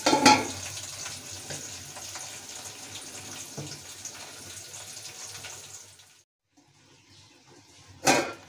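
Large covered aluminium pot of rice and chana dal boiling on a high gas flame: a steady watery hiss that cuts off about six seconds in. Near the end comes a short metallic clank as a hand takes hold of the aluminium lid.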